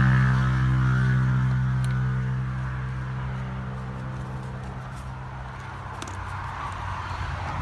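An engine's steady hum, fading away over the first six seconds. A few faint clicks follow.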